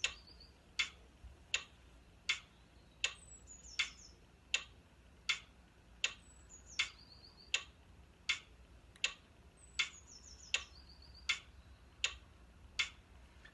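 Phone metronome app clicking steadily at 80 beats per minute, one sharp click about every three-quarters of a second, marking the timing of a putting stroke.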